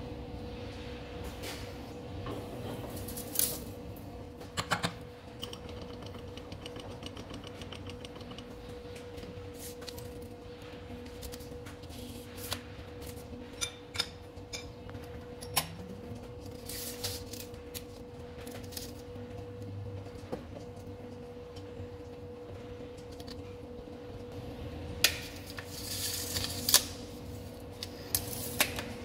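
Scattered metal clinks and taps as a steel flange and tools are handled and fitted at a lathe, with a busier run of knocks near the end, over a steady machine-shop hum.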